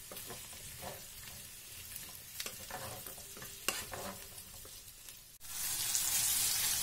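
Zucchini, carrot and onion sizzling as they fry in oil in a coated frying pan, with a wooden spatula stirring and scraping against the pan in scattered clicks. About five seconds in, the sizzle cuts off abruptly and comes back louder.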